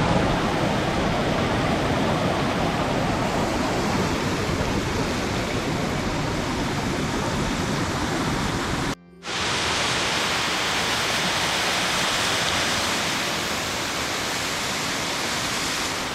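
Rushing water from a stream or waterfall swollen by heavy rain, a steady loud rush. About nine seconds in it breaks off briefly and resumes with a brighter, hissier sound.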